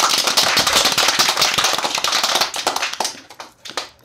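A dense, rapid crackle of many sharp cracks that thins out about three seconds in to a few single cracks, then stops near the end.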